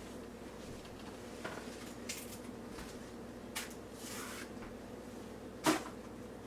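Light handling sounds of food going into a plastic blender cup: a few scattered clicks and a brief rustle, with one sharper knock near the end, over a faint steady hum.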